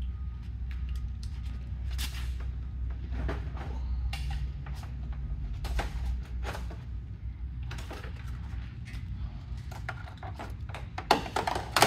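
Scattered knocks, clicks and rattles of pressure-washing gear being handled and stowed in a rack on a truck, over a steady low hum. A quick run of louder knocks comes near the end.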